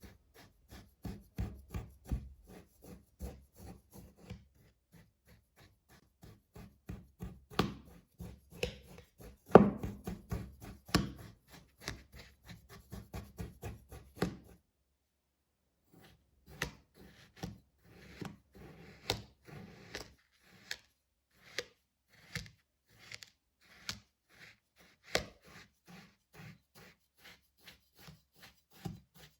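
Kinetic sand being cut and crushed, a quick series of soft crunchy cuts and taps, about two or three a second, stopping for about a second halfway through.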